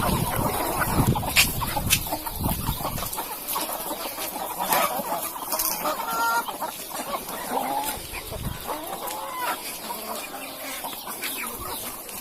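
Broiler chickens clucking and calling, many short calls overlapping, with scattered clicks. A low rumble underneath fades out about three seconds in.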